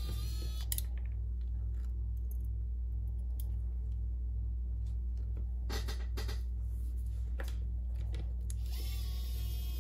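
Electric precision screwdriver briefly whirring as it backs out small screws from a Samsung Galaxy Note 9's internal panel: a short whine at the very start, and another that rises and then holds about nine seconds in. A few clicks of small tools and parts come around six seconds in, over a steady low hum.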